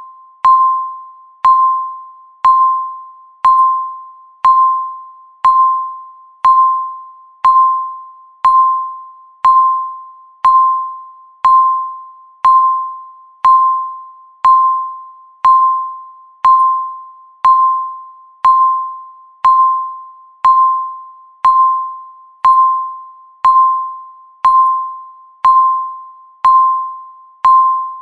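Countdown timer beep sound, one per second: a single electronic tone that strikes sharply and fades away, repeating evenly each second.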